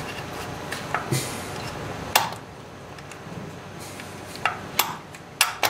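Sharp metal clinks and taps from parts and tools being handled in a car's engine bay during distributor fitting. Several scattered clicks, the loudest about two seconds in, with a quick run of taps near the end.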